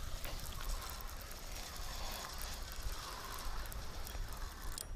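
Spinning fishing reel being cranked to wind in line: a steady, fast ticking whir.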